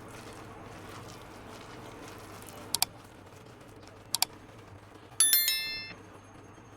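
Two quick double clicks, then a cluster of bright ringing clinks at several pitches about five seconds in, fading within a second: kitchen utensils or dishes striking one another, over a low steady hum.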